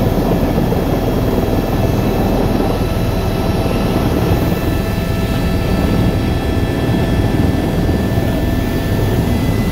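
Helicopter's turbine engine and rotor heard from inside the cabin at low power while taxiing: a steady low rumble with several steady whining tones above it.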